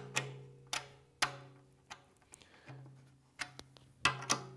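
Drum key turning the tension rods on a drum's bottom head: about ten sharp clicks, several of them leaving the drum ringing with a low tone. The rods are being turned about 25 degrees to change the drum's pitch.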